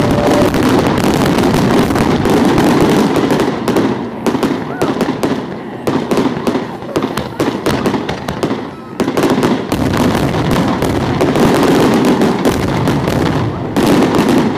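Fireworks grand finale: a rapid barrage of shells bursting and crackling, the blasts packed so close they run together. The barrage thins for a few seconds in the middle, then builds back up.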